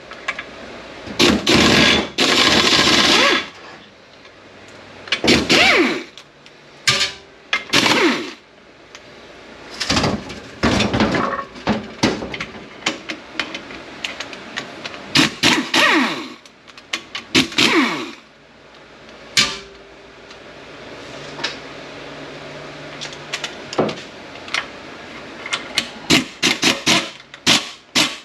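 A power wrench running in repeated short bursts, its motor speeding up and slowing down, as it backs out the 9/16 rear-cover bolts of an SM465 four-speed manual transmission. Sharp metallic clicks and clanks of tools and parts come in between the bursts and crowd together near the end.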